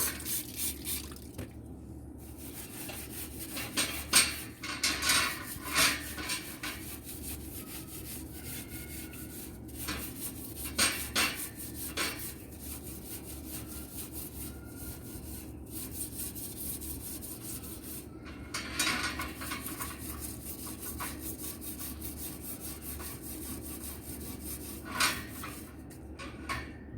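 Stainless-steel barbecue grill parts being scrubbed and handled while washing, with irregular scraping strokes and metal clatter over a steady low hum.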